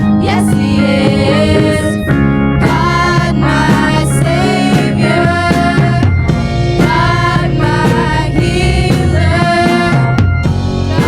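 Christian worship song performed with singing over instruments and a drum kit, with a steady beat.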